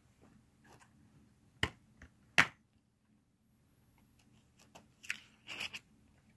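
Handling noise: two sharp clicks about three-quarters of a second apart, then scattered light clicks and a short rustle near the end.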